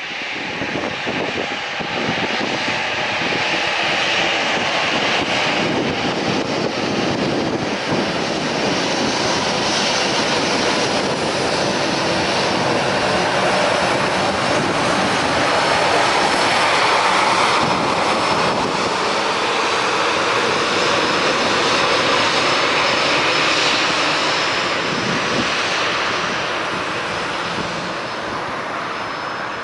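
Airbus A319's two CFM56-5A5 turbofan engines running at taxi power as the airliner taxis past: a steady rush with a thin high whine on top. It swells to its loudest about halfway through and eases off as the aircraft moves away.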